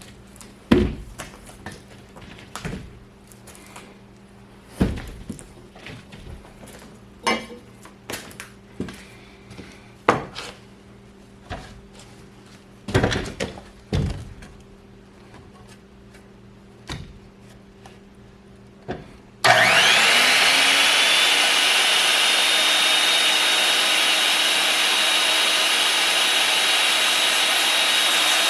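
Scattered knocks and clatters of timber and tools being handled, then about two-thirds of the way in an electric circular saw starts with a rising whine and runs steadily and loudly, cutting into a wooden timber.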